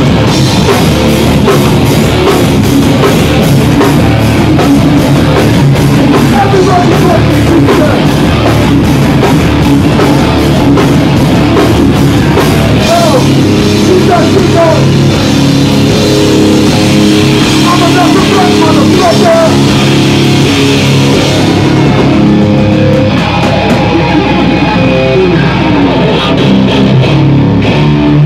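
Live hardcore punk band playing loudly: distorted electric guitars, bass guitar and drums. About two-thirds of the way through, the drums and cymbals drop out, leaving the guitars and bass ringing.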